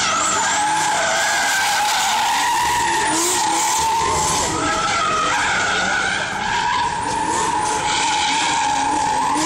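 Drift cars sliding sideways, their tyres squealing in long, wavering squeals, with engines revving underneath in short rising bursts.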